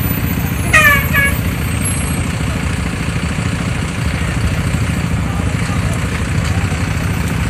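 Bus engine idling with a steady low rumble. About a second in, a brief pitched call with a falling pitch sounds over it.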